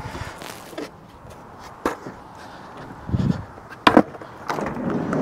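Scattered knocks and handling sounds as a person climbs out of a van, with a low thump about three seconds in, then a sharp click just before four seconds as the van's sliding door handle is pulled.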